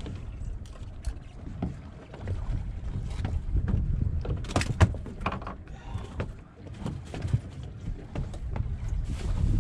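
Low rumble of wind and water around a small fishing boat drifting at sea, with a few sharp clicks and knocks of fishing tackle being handled about halfway through.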